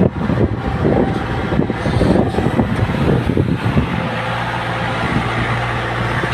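The 49 hp diesel engine of a Bull CH76 backhoe loader running. It runs unevenly with knocks and rattles for the first three and a half seconds or so, then settles to a steady idle.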